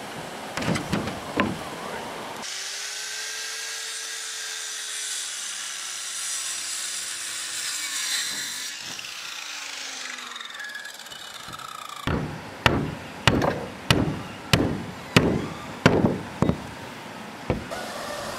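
Hand-tool blows on wood: a few sharp knocks at the start, then after a stretch of steady hiss a regular run of about ten strikes, between one and two a second.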